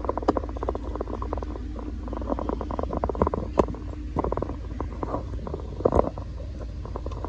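Handling noise while a panel is fitted to a PC case: a low rumble under a fast run of small clicks and rattles, with a few sharper clicks about a third of a second in, midway, and about six seconds in.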